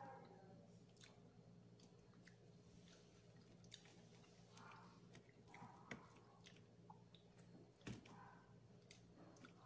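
Faint close-mic chewing of grilled whole fish head: soft wet mouth smacks and scattered small clicks, with one sharper click about eight seconds in. A low steady hum runs underneath.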